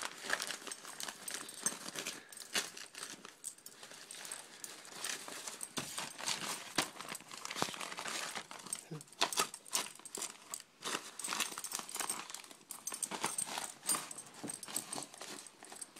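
Wrapping paper crinkling and ripping as a dog tears open a gift, a dense run of irregular crackles and tears.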